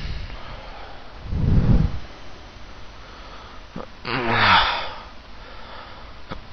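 A man waking up and stretching: a short low groan about a second and a half in, then a loud, breathy yawn that falls in pitch about four seconds in.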